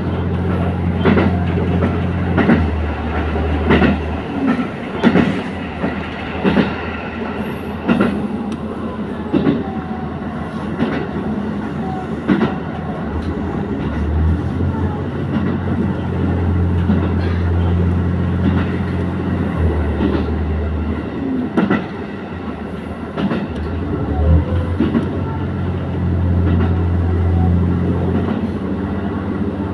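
Diesel train running along the track: a steady low engine drone that shifts in pitch a few times, with irregular clicks and knocks from the wheels passing over rail joints.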